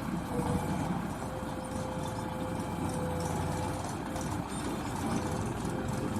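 JCB backhoe loader's diesel engine running steadily, a constant low rumble with a steady hum above it.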